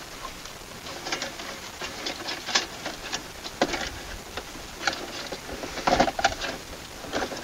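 Plastic clicking, scraping and rustling as a car radio and its wiring harness are handled and pushed into the dash opening, with a cluster of louder knocks about six seconds in.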